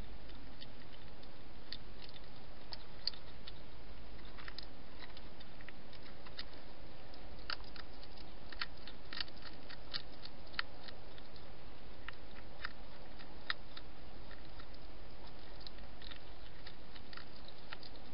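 A wild hedgehog chewing and crunching its food: irregular crisp clicks, at times a few a second, over a steady hiss from the camera's microphone.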